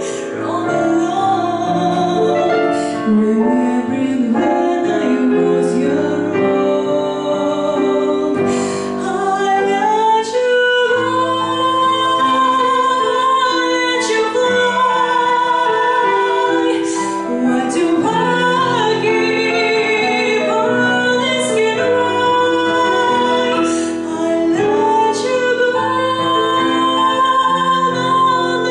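A woman singing a slow song with piano accompaniment on a digital piano. She holds long notes with vibrato.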